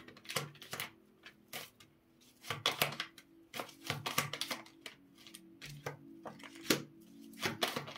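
Tarot cards being shuffled by hand: a run of irregular soft clicks and slaps as the cards slide and tap together.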